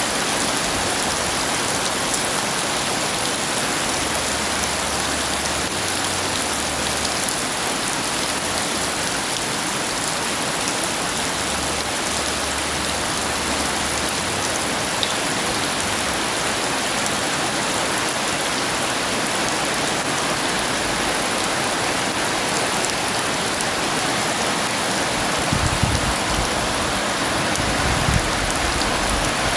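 Heavy rain falling steadily, an even downpour hiss, with a few brief low rumbles near the end.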